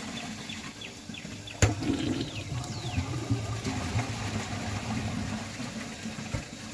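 American Standard Champion toilet flushing, with water swirling and draining down the bowl. A single sharp click comes about one and a half seconds in.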